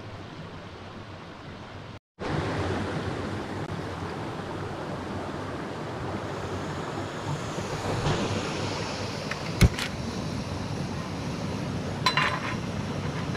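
Steady rush of a flowing stream, dropping out briefly about two seconds in and coming back louder. A sharp knock comes about three-quarters through, and a short clink near the end.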